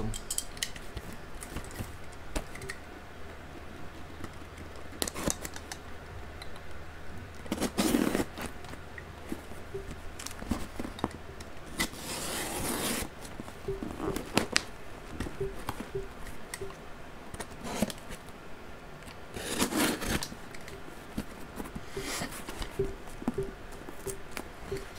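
A cardboard shipping box being opened by hand: packing tape cut and torn, cardboard and wrapping scraping and rustling, with scattered clicks. Louder tearing scrapes come three times, about eight, twelve and twenty seconds in.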